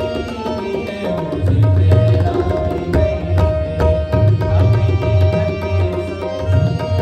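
Tabla played in a fast, dense rhythm, with deep bass strokes from the bayan under the ringing treble drum, over steady held notes of a harmonium.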